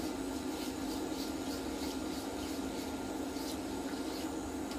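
Steady hum of a portable induction hob's cooling fan, with faint irregular soft ticks as a fork stirs a cream sauce in the pan.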